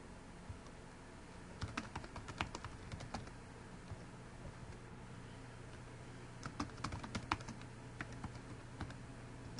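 Typing on a computer keyboard: a run of keystrokes about a second and a half in and a second run about six and a half seconds in, over a faint steady hum.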